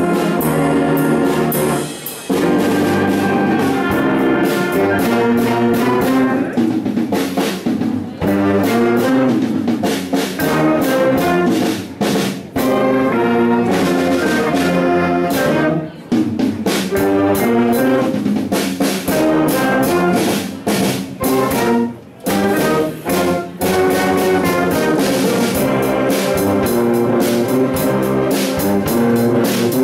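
A middle school concert band playing a jazz tune: brass and woodwinds in rhythmic ensemble chords over a drum set.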